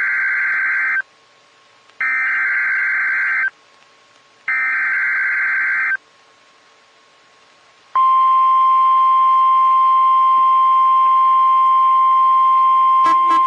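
Emergency Alert System header on NOAA Weather Radio: three harsh, buzzy data bursts, each about a second and a half long with a second-long gap between them. About two seconds later the steady 1050 Hz warning alarm tone begins and holds. Together they signal the start of a severe thunderstorm warning broadcast.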